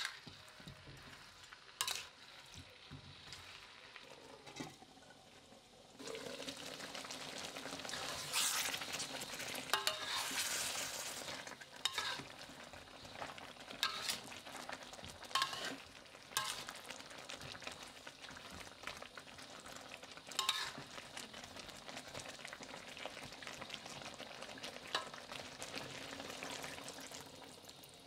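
Eggplant pieces sizzling as they are stir-fried in ground spice paste in a metal wok, with a utensil scraping and knocking against the pan every few seconds. The sizzle gets louder about six seconds in.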